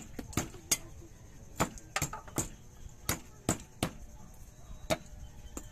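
Serrated kitchen knife chopping garlic cloves on a wooden chopping board: about a dozen sharp, uneven knocks of the blade on the wood.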